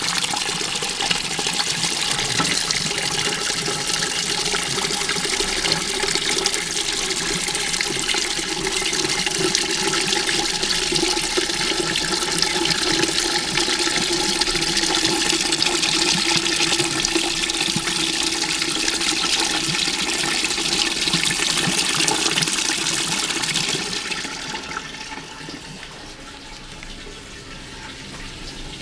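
A steady stream of liquid pouring from a hose through a mesh strainer into a plastic five-gallon bucket, a continuous splashing rush. It drops away about 24 seconds in, leaving a much quieter background.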